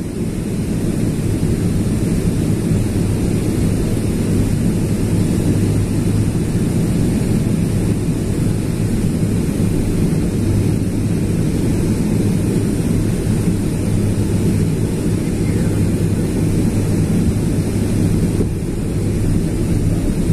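Steady cabin noise inside a Boeing 777-300ER airliner on descent: a low roar from its GE90 engines mixed with the rush of air along the fuselage, with a few steady low hums. The level dips slightly near the end.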